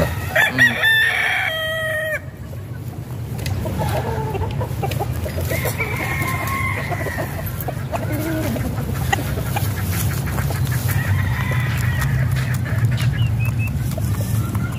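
Gamefowl roosters crowing: one loud crow in the first two seconds, then fainter crows from other roosters about 6 and 11 seconds in. A steady low rumble runs underneath.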